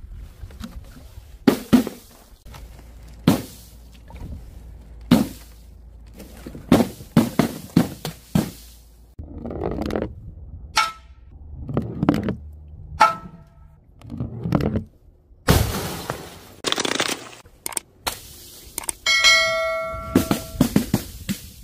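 A string of separate sharp impacts as objects are dropped and smashed: balloons bursting on a board and a ball crashing onto an old CRT television. Near the end a ringing tone holds for about a second and a half.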